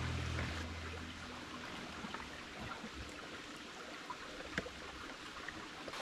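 Shallow creek water running and trickling over rocks, a steady gentle water noise with a few faint ticks.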